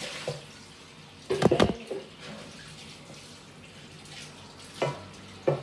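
Cake batter being stirred by hand in a bowl, with a quick cluster of loud knocks about one and a half seconds in and a couple of lighter clicks near the end.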